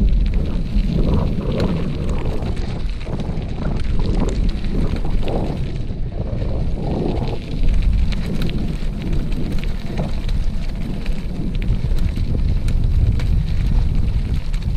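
Wind buffeting the microphone of a camera carried along a gravel trail: a steady, loud low rumble, with scattered short crackles from the trail surface.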